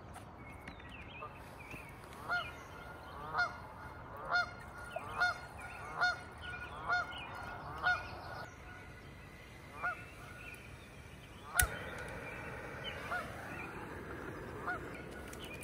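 A goose honking repeatedly across the water, short calls about one a second, then a few more spaced out. A single sharp click near the end, followed by a faint steady hiss.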